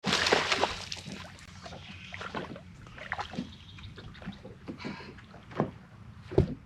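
Water splashing and irregular knocks and clatters on a small fishing boat, over a steady low hum. The sound starts abruptly.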